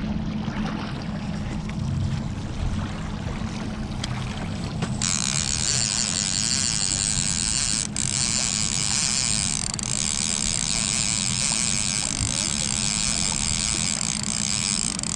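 Outboard motor running steadily at trolling speed, with water churning in the boat's wake. About five seconds in a loud steady hiss comes in and stays.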